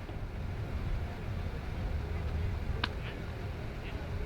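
Steady low rumble of outdoor background noise, with a sharp click and a few brief high chirps about three seconds in.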